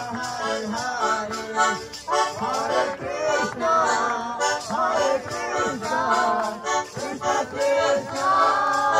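Devotional kirtan music: a harmonium playing with a voice singing and a steady beat of percussion.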